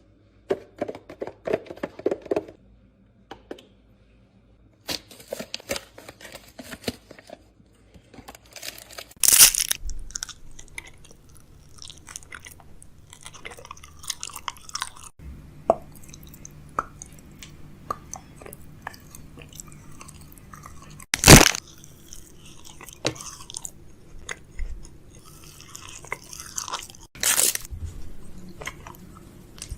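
Close-up crunching, crackling and clicking handling noises in kitchen food preparation, with three loud sharp knocks spread through. A low steady hum comes in underneath about a third of the way through.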